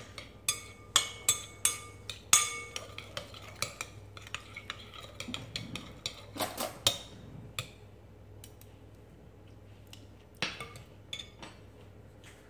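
Metal spoon stirring and tossing a wet minced-pork salad in a glass mixing bowl: irregular sharp clinks of spoon on glass, some with a brief ring. The clinks come thick for the first eight seconds or so, then thin out to a few more near the end.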